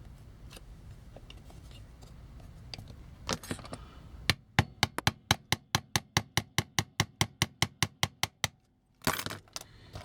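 Small hammer tapping a metal pin to drive it out of a vintage Transformers toy. A few faint clicks come first, then about four seconds in a fast, even run of some twenty light metallic taps, about five a second, which stops abruptly.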